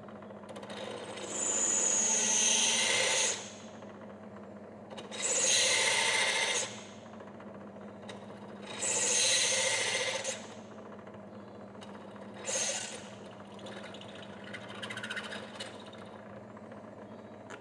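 Drill press running steadily while its bit cuts a hole through a metal trim-tab mounting bracket. There are three loud spells of cutting, about two seconds each, as the bit is fed into the metal, then a shorter, lighter cut and some fainter ones toward the end.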